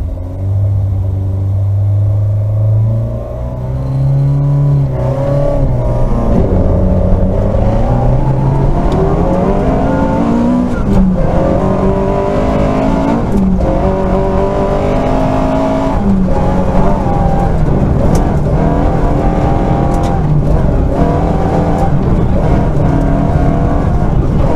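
Rally car engine heard from inside the cabin, held at steady revs for the first few seconds, then revving hard and accelerating, with the revs climbing and dropping again and again.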